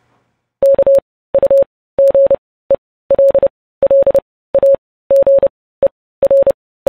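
Morse code: one steady mid-pitched beep keyed on and off in short and long elements, grouped into letters, starting about half a second in.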